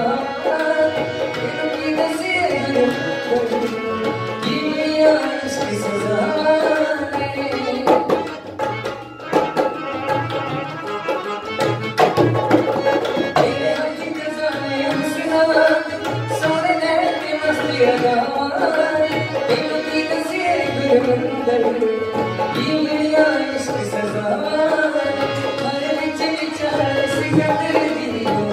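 Male vocalist singing a Punjabi ghazal-style song into a microphone, accompanied by tabla, dholak and harmonium. The drums keep a steady rhythm under the harmonium's sustained chords, with a short drop in level about nine seconds in.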